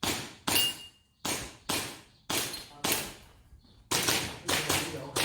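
Airsoft pistol being fired in a rapid string of sharp shots, about nine in five seconds, mostly as quick pairs half a second apart with short pauses between pairs.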